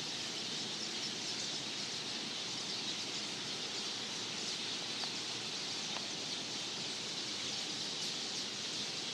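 A large flock of tiny birds, with red on their heads, calling all at once from the surrounding trees: a loud, dense, unbroken chorus of high chirps.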